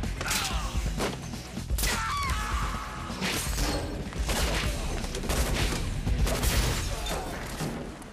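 Action-film fight sound effects: a rapid series of sharp blows, thuds and swishes, with gunshots among them, over a music score.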